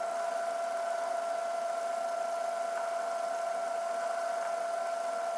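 1936 Atlas 12-inch metal lathe running under power during a turning pass, giving a steady, even whine with a light hiss.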